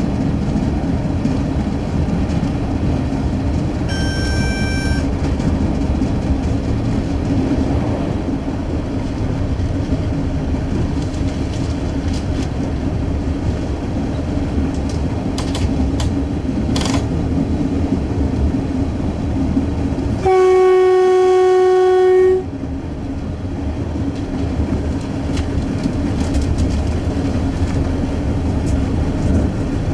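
TransAdelaide 2000 class 'Jumbo' diesel railcar under way, heard from the front cab: steady running noise of the train on the rails with a low hum. About twenty seconds in, the train horn sounds one steady blast of about two seconds, the loudest sound; a short, fainter high tone comes about four seconds in.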